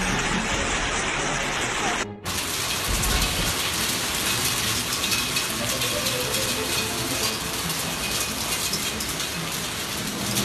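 Heavy rain pouring down and beating on surfaces, a dense steady hiss, broken by a brief cut about two seconds in.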